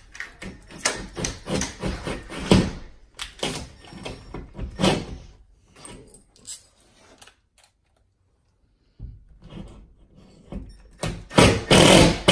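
Cordless drill driving into drywall in short, uneven bursts: a run of them over the first five seconds, a pause, then a loud burst near the end.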